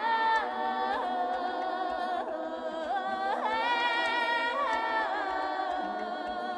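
Title-sequence theme music: a slow melody of long held notes that slide between pitches.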